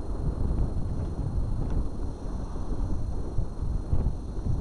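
Wind buffeting the microphone of a camera moving along the beach, an uneven low rumble that swells and dips.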